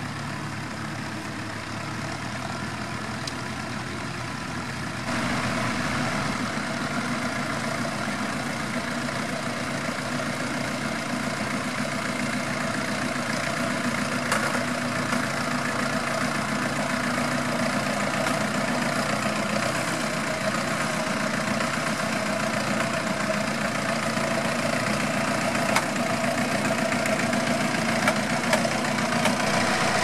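Vintage tractor engine running steadily under load as it pulls a plough through stubble. The engine gets louder and brighter about five seconds in.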